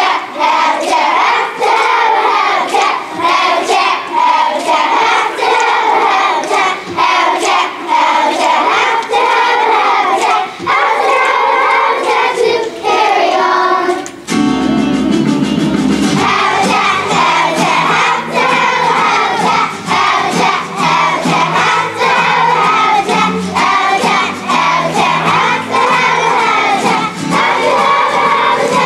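A children's choir singing together in unison. About halfway through, an instrumental accompaniment with a low bass line comes in beneath the voices.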